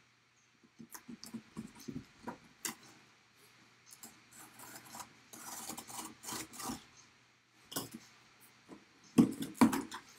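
Cardboard shipping box being handled and opened by hand: scattered scrapes, rubs and taps, a brief rasping stretch about halfway through, and a few louder knocks near the end.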